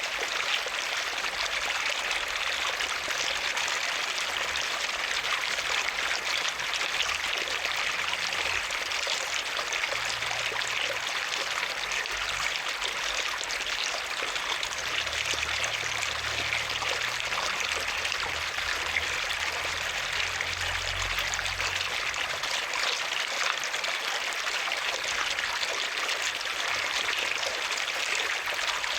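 Water running and splashing steadily, an even rushing sound with no letup.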